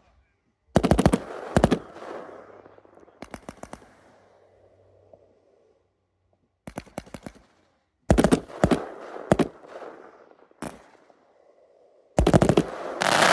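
Fireworks going off: several volleys of rapid sharp bangs in quick succession, each with an echoing tail, separated by short quiet gaps. The densest, loudest volley comes near the end.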